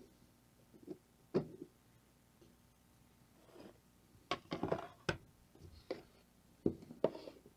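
Hard plastic halves of a 3D-printed soft-bait injection mold knocking and clicking as they are handled and pried apart, with soft rustling between the taps. The loudest tap comes about a second and a half in, and a quick cluster of clicks follows around four to five seconds in.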